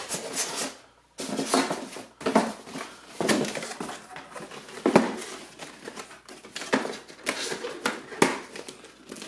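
A cardboard box and its foam packing insert being handled and shifted on a stone countertop. There is irregular scraping and rustling with several knocks, the loudest about five seconds in.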